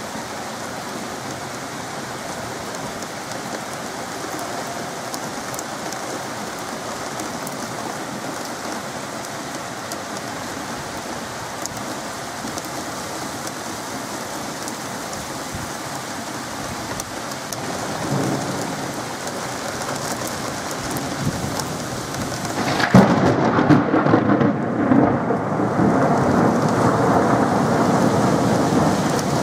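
Heavy rain pouring steadily during a thunderstorm. Thunder rumbles faintly about 18 seconds in, then a louder, longer rumble breaks in about 23 seconds in and keeps going.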